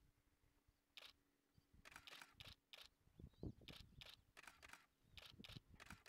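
Faint, short splashes of a wagtail bathing in a shallow puddle, flicking water with its wings and body in a quick, irregular run that starts about a second in.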